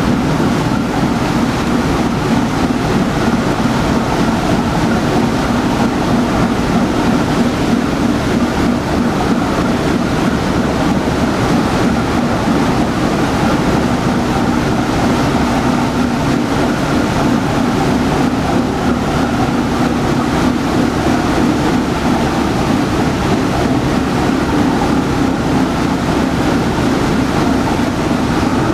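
Steady drone of an inland vessel's diesel engine running under way, with a constant hum, over the rush of propeller wash churning the water.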